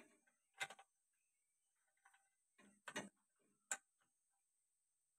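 Sharp metal clicks from a wrench working the bolts of a tractor clutch assembly as they are tightened: three louder ones, about a second in, near three seconds and near four seconds, with fainter clinks between.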